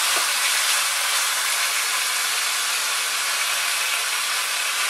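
Bacon strips sizzling steadily in hot garlic olive oil in a frying pan, an even, unbroken hiss as they brown.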